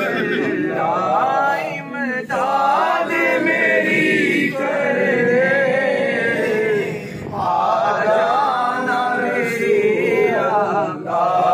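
A man's voice singing an Urdu devotional naat without accompaniment, in long wavering, drawn-out phrases with short breaks for breath between them.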